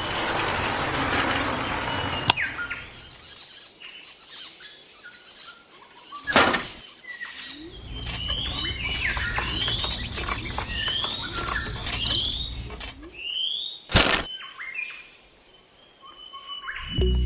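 Small birds chirping in repeated short rising calls. A mechanical rattle runs for the first two seconds and stops with a click, and two loud thunks come about six and fourteen seconds in.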